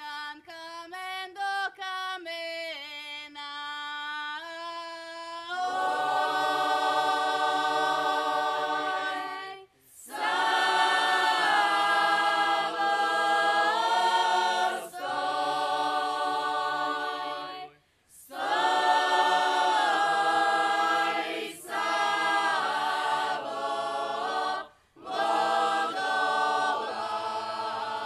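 Traditional Slavonian folk song sung a cappella. One voice sings the opening line alone, then a mixed group of women and men joins about five seconds in, singing in long phrases broken by short pauses.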